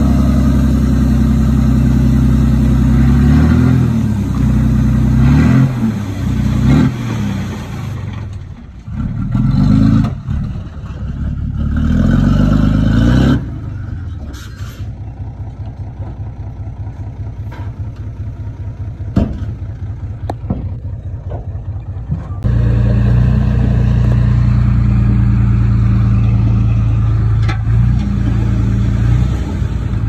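Diesel engine of heavy earthmoving equipment running and changing revs under load. About halfway through it drops to a quieter, evenly pulsing run with a few sharp metallic knocks, then runs loud and steady again.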